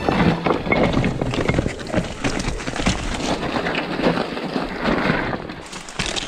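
Mountain bike clattering over a rocky trail, with a dense, irregular rattle of knocks and clicks from the frame and chain and tyres crunching on loose stone.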